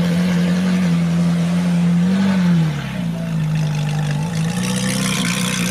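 Ferrari supercar's engine idling steadily, with a brief rise in revs about two seconds in that falls back to idle.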